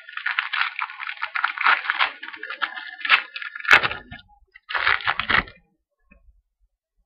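A pack of trading cards being handled and opened: dense crinkling and rustling with many small clicks and one sharp crack a little past halfway, stopping about two-thirds of the way through.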